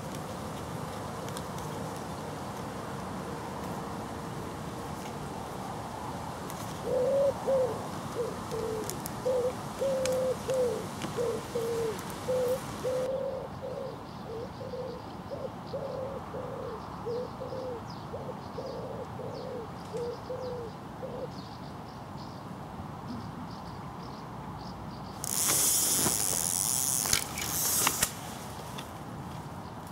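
A pigeon cooing: a long run of low repeated coos, over a steady rush of river water. Near the end comes a loud burst of rustling noise lasting about three seconds.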